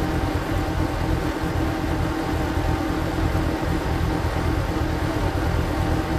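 Single-cylinder diesel engine of a power tiller running steadily while it drives a screw cone log splitter, played at double speed.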